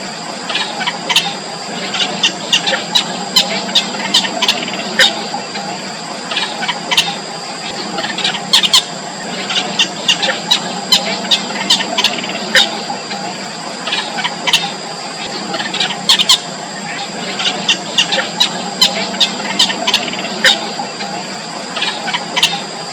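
Four-day-old nestlings cheeping to beg for food: short, high peeps come in irregular clusters, several a second at times.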